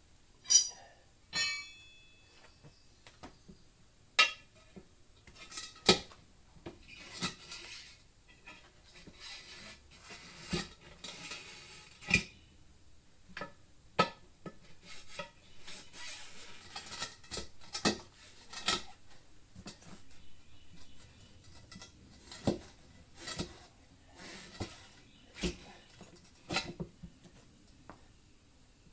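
Hand tire-changing tools clanking and scraping against a wheel rim as a tire is worked onto it: irregular sharp metallic knocks, the first two near the start ringing briefly.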